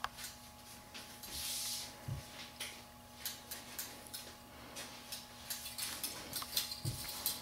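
Faint, scattered light clicks and clinks, with a soft low thump about two seconds in and another near the end, and a brief hiss about a second and a half in.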